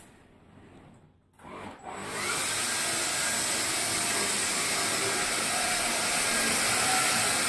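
Hoover Air Cordless Lift upright vacuum switching on about two seconds in, then running steadily: a loud rushing whirr with a thin high-pitched whine.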